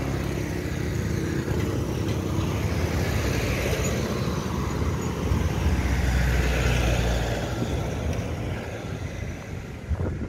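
Road traffic driving past, a steady rumble that grows loudest about six to seven seconds in as a vehicle passes close by.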